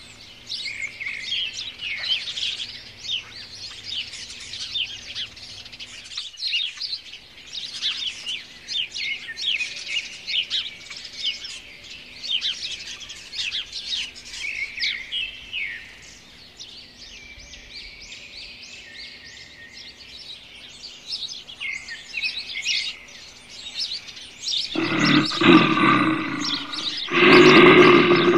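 Many small birds chirping and trilling continuously. Near the end, two loud rasping growls about two seconds apart from lionesses confronting each other.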